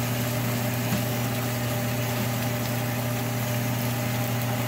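A steady low hum, with a banh xeo crepe frying in the pan under it.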